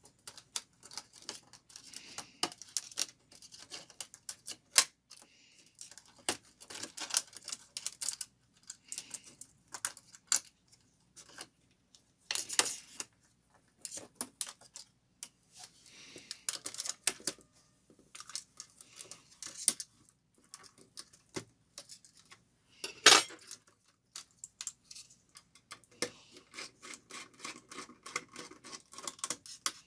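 Irregular small clicks, taps and brief scraping of plastic and metal parts being handled inside a partly disassembled Dell Studio 1535 laptop, as connectors and panels are worked loose. A louder click comes about three-quarters of the way through.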